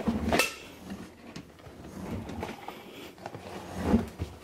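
Knocks and rustling of things being handled, with a louder knock at the start and another about four seconds in.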